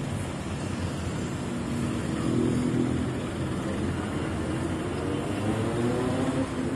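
Diesel engine of a Mercedes-Benz coach bus running as it pulls away, its pitch rising twice as it gains speed.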